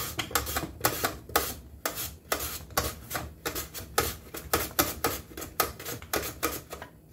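Raw potato slid again and again across the blade of a plastic mandoline slicer, cutting a slice on each stroke, about two strokes a second, stopping near the end.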